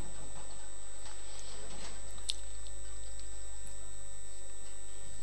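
Faint room tone with a steady electrical hum and a few scattered faint clicks, the sharpest a little over two seconds in.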